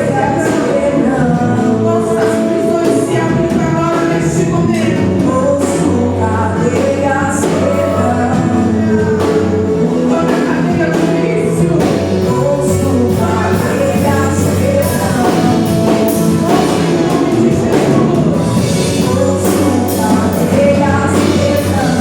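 Live worship music: voices singing over a band with a steady beat.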